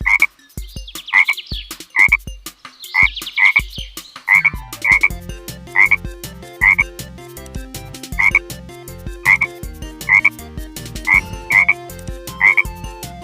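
Frog croaking: short calls repeated about once or twice a second. A deeper repeating sound joins underneath about four seconds in.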